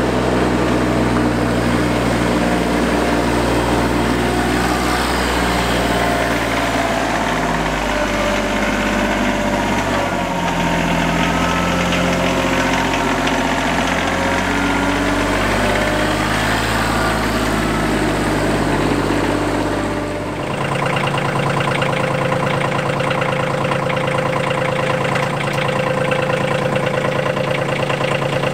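Compact tractor diesel engine running as the tractor moves past, its pitch drifting a little up and down. About two-thirds of the way through the sound switches abruptly to a tractor engine running at a steady speed while the tractor drives forward with a grapple on its loader.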